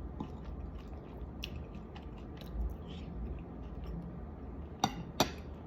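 A person chewing a mouthful of granola with yogurt and fruit, with soft crunching, and two sharp clicks close together near the end.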